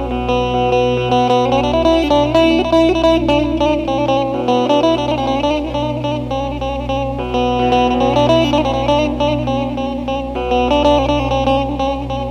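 Instrumental break in a Turkish folk song: a plucked string instrument plays a quick melody of repeated notes over a steady low drone, with no singing.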